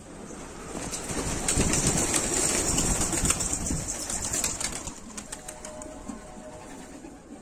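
A flock of domestic flying pigeons taking off from the loft: a swelling rush of wingbeats and wing claps that builds about a second in and dies down about halfway through.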